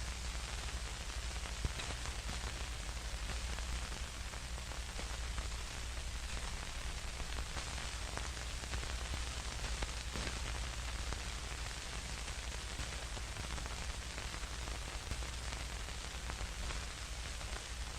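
Old-film static sound effect: a steady hiss with a low hum underneath, dotted with scattered faint clicks and crackles.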